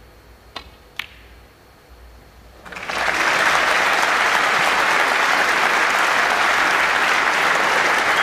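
Two sharp clacks of snooker balls about half a second apart, the cue striking the cue ball on the break-off and the cue ball hitting the pack of reds. About three seconds in, a large audience breaks into loud, steady applause.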